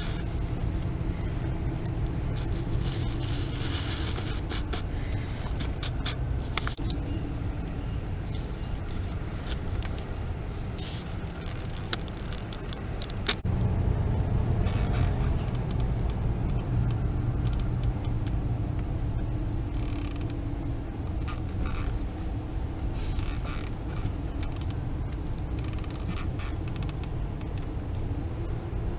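Car driving slowly, heard from inside the cabin: a steady low engine and road rumble with light creaks and ticks. It gets louder about halfway through.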